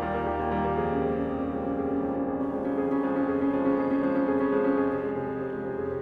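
Instrumental background music of held, sustained chords, which change a little under a second in.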